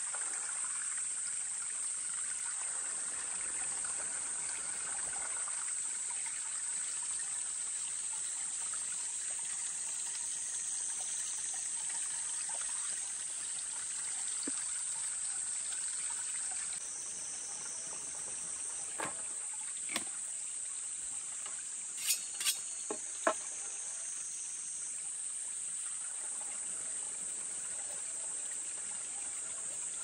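Steady high-pitched insect chorus. A few sharp clicks or knocks come in a short cluster about two-thirds of the way through.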